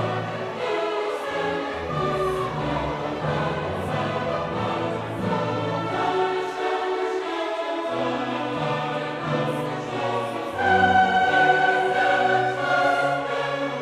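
Choir and orchestra performing classical music, with long held sung notes that grow louder about two-thirds of the way through.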